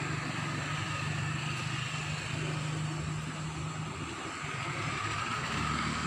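A motor vehicle's engine running with a steady hum that breaks up about four seconds in.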